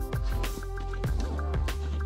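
Background music: an electronic track with a heavy bass line and a steady beat.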